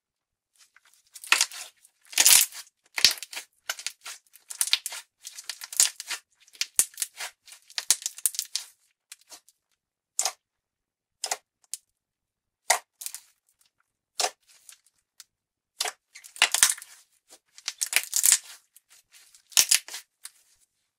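Slime Japan's Starry Night, a glossy blue glitter slime, being stretched, pressed and folded by hand: irregular wet crackles and pops as it pulls and traps air. There are bursts in clusters, with sparser single snaps in the middle.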